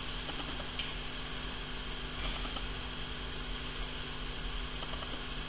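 Steady low mains hum with faint room noise.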